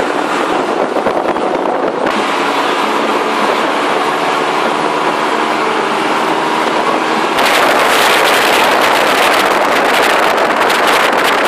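Moving bus heard from inside the cabin: steady engine and road noise. About seven seconds in, a louder rush of wind and road noise suddenly takes over at the side window.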